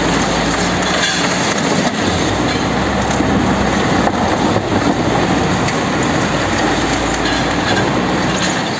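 Heavy machinery destroying a refrigerator: a loud, continuous grinding and rumbling clatter with a low hum beneath it, easing off at the very end.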